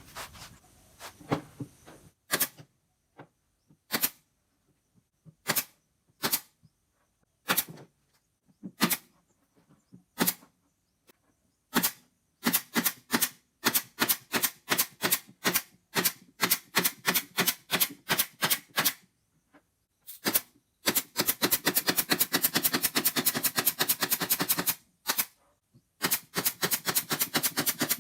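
Sharp knocks, scattered at first, then about three a second, then fast runs of about ten a second near the end: tool impacts during cabinet building.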